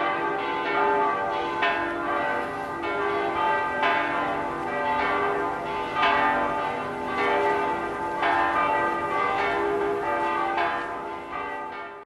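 Church bells ringing, a new strike about every second with the tones ringing on between strikes. The sound cuts off suddenly at the end.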